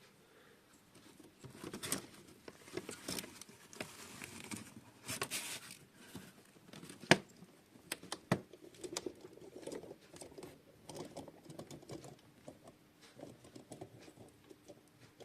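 Handling noise: irregular rustling and small clicks and taps, with two sharper clicks about seven and eight seconds in.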